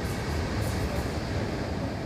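Steady rushing noise of surf breaking on a shingle beach, with a strong low rumble, starting suddenly just before this moment.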